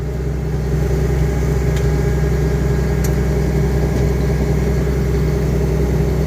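Caterpillar 320C L tracked excavator's diesel engine running steadily at a constant speed, a low, even drone.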